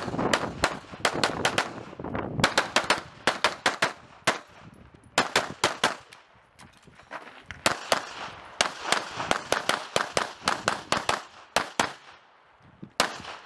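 Rapid strings of pistol shots from a CZ Shadow 2 competition pistol, fired in fast pairs and runs, with short breaks of a second or so while the shooter moves between positions.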